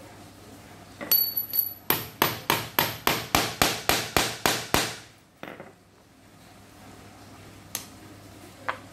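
A hammer striking a metal snap-fastener setting punch about ten times in quick succession, roughly three blows a second, setting a four-part press stud into the cloth. Just before the blows comes a single ringing metallic clink.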